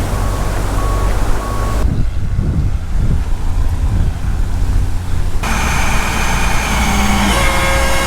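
Heavy truck running, with a strong low rumble of wind on the microphone. Three short beeps sound in the first two seconds, and about five seconds in a steadier pitched engine or horn note joins in.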